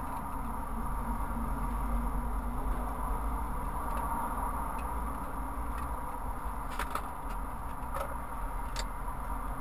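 Steady low vehicle rumble heard inside a stopped vehicle's cab, with motorway traffic passing alongside. A few faint clicks come near the end.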